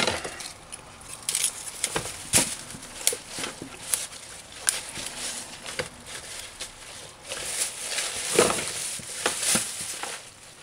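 Thick callaloo stems being snapped and torn off by hand, with the leafy bunch rustling: an irregular run of crisp snaps and crackles, busiest near the end.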